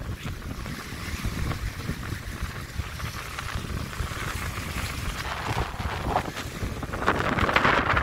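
Strong wind buffeting the microphone over lake waves breaking and splashing against the bank; the splashing grows louder near the end.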